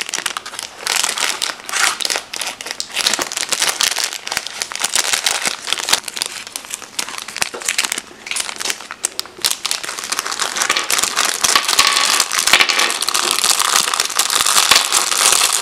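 Clear plastic packaging bags crinkling and rustling as they are handled and opened, with a dense run of small crackles that grows louder in the last few seconds.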